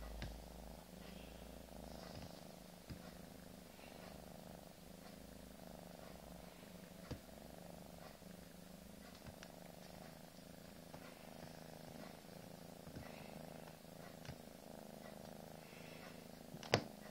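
Domestic cat purring steadily, close to the microphone, with a few faint clicks and one sharp click near the end.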